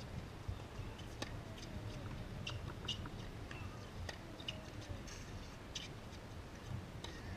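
Tennis rally on a hard court: a string of sharp, fairly faint pops from racket strings hitting the ball and the ball bouncing, with a few brief high squeaks, over a low background rumble.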